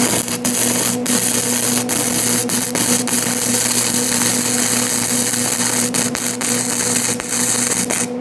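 Electric welding arc crackling and hissing steadily, with frequent sharp pops, stopping abruptly near the end when the arc is broken.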